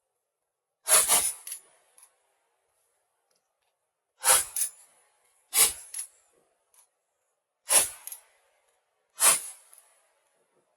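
Five shotgun shots at irregular spacing of one to three seconds, each followed by a short echo.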